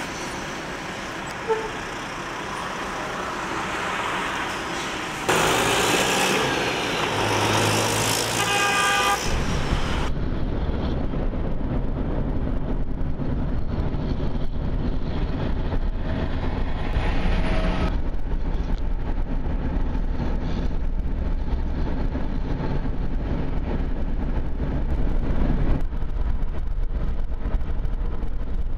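Traffic noise from trucks on a highway, with a horn sounding about a third of the way in. After that comes a steady low road and engine rumble from driving alongside a semi-truck hauling an oversize load.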